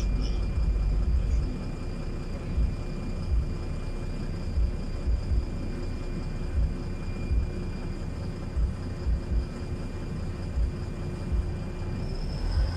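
Interior of a LiAZ 5292.22 city bus under way: a steady low rumble of engine and road, with a faint steady whine above it and scattered low thumps.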